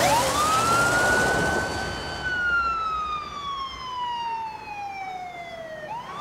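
Police car siren wailing: it winds up to a high pitch in about a second, holds, then slowly falls away over about four seconds and starts climbing again near the end. The rush of the patrol car driving past sits under it in the first couple of seconds.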